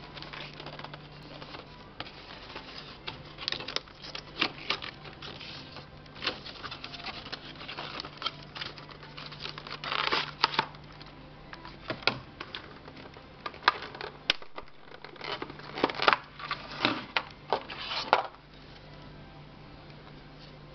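Cardboard retail box and plastic tray being handled and opened: irregular rustling, scraping and clicking of cardboard and plastic packaging, which stops a couple of seconds before the end. A steady low hum runs underneath.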